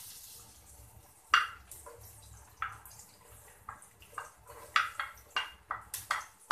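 Wooden spatula scraping chopped onion off a plate into a pot of oil: a string of short taps and scrapes as the pieces drop in. The sharpest comes about a second and a half in, and they come faster in the second half.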